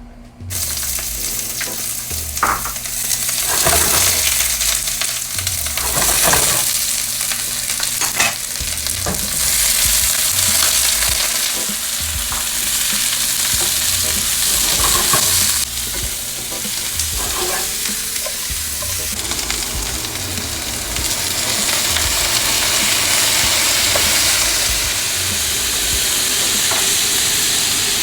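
Chopped tomatillos, onion and chiles sizzling steadily in hot olive oil in a frying pan as they char, with scattered knocks and scrapes of the utensil stirring them.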